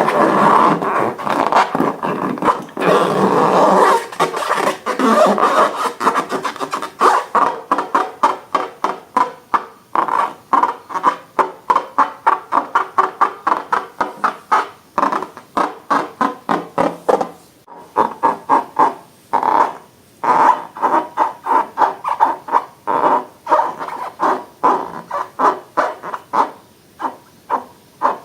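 Slime being squished and kneaded by hand, a dense run of wet squelches at first, then a long irregular series of short sticky clicks and pops, about four a second.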